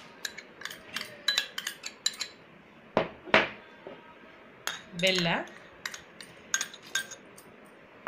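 A steel spoon clinking and tapping against a stainless steel bowl and mixer jar as paste is scraped off into the jar. It is a scattered series of sharp clinks, the loudest two about three seconds in.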